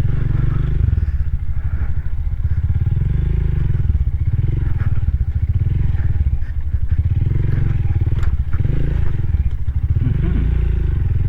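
Rusi Classic 250's LX166FMM single-cylinder four-stroke engine running while the motorcycle is ridden, a steady pulsing throb whose pitch rises and falls with the throttle.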